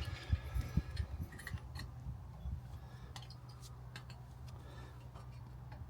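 Light metallic clicks and knocks from handling brake caliper parts, several in quick succession in the first second and then scattered single clicks, over a steady low hum.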